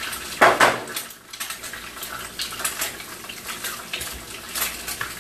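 Eggs being cracked against a frying pan and dropped into hot oil, with sharp clicks and clinks of shell on the pan, the loudest about half a second in. Smaller clicks follow over a steady sizzle of frying.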